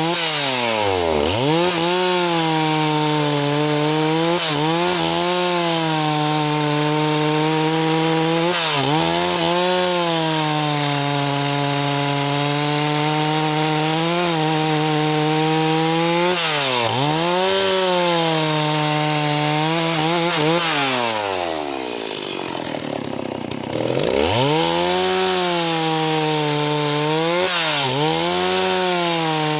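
Stihl 038 two-stroke chainsaw running at full throttle through wood. The engine note sags under load and recovers several times, with one long, deep bog about three quarters of the way through before it climbs back.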